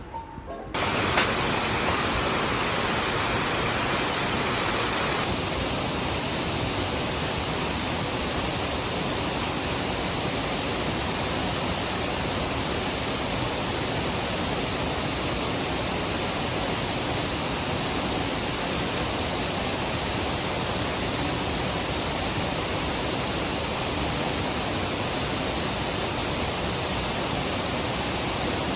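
Waterfall: a steady, even rush of water crashing onto rocks, starting suddenly about a second in, with a slight change in its tone about five seconds in.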